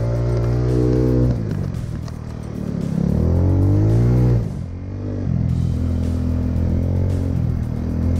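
Scooter engine running under load on a rough dirt trail, its revs changing with the throttle: they drop a little over a second in, climb again around three seconds, drop just after the halfway point, then hold steady.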